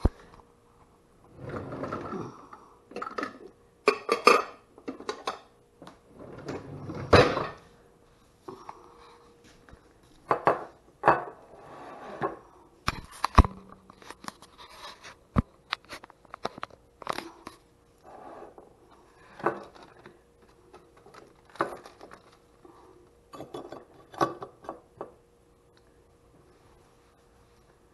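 Kitchen containers being handled on a granite countertop: irregular knocks and clatter of a plastic tray and a ceramic casserole dish being moved and set down, over a faint steady hum.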